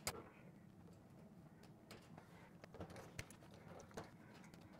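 A few faint, scattered clicks and taps of a nut driver on the metal terminal nuts of a range's power-cord terminal block. The first and loudest click comes right at the start.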